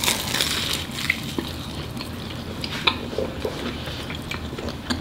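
Close-miked biting and chewing of flaky puff pastry by two people: crackly crunching with a few sharp clicks, strongest just at the start.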